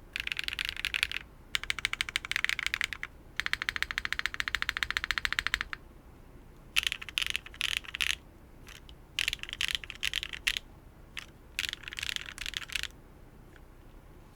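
Typing on a TKD Cycle 8 mechanical keyboard with HMX Lunar Stone linear switches. It starts with fast, dense runs of keystrokes, then slows to short, spaced-out clusters of presses that stop a little over a second before the end.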